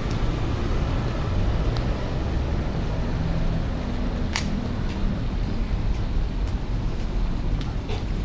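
Steady low rumble of street background noise on the microphone while walking, with a few faint short clicks.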